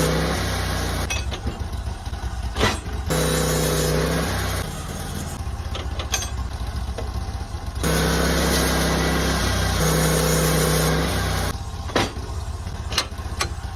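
Portable sawmill's engine running steadily, its tone stepping up and getting a little louder for a few seconds at a time, twice, while a ponderosa pine beam is being milled. Several sharp clicks sound along the way.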